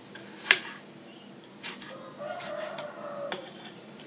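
Kitchen knife slicing through a tomato and knocking on a wooden cutting board, four separate cuts with the loudest about half a second in. A drawn-out call sounds faintly in the background for about a second, starting around the middle.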